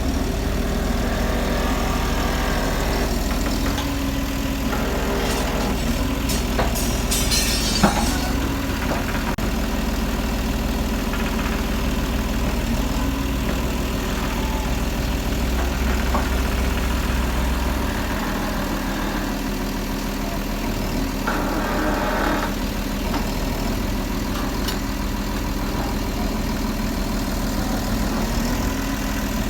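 Case 2050M crawler dozer's diesel engine running steadily at idle. A sharp knock comes about eight seconds in, and a short rush of noise a little after twenty seconds.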